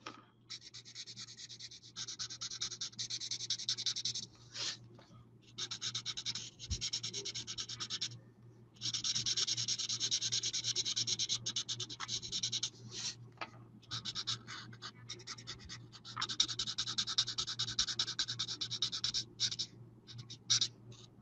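Alcohol-ink marker (Stampin' Blends) rubbing quickly back and forth on cardstock as a stamped image is coloured in. It is a fast, scratchy stroking that comes in runs of a few seconds, with short pauses between.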